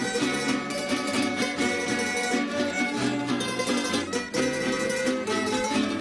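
An estudiantina, a plucked-string ensemble of bandolas and mandolins, playing a folk tune together, with some melody notes held over a lower accompaniment.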